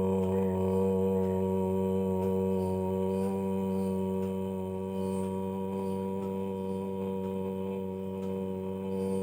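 A single voice chanting one long, low 'Om', held at one steady pitch, growing slightly softer as it goes.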